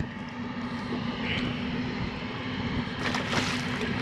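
A steady engine drone holding one even pitch throughout.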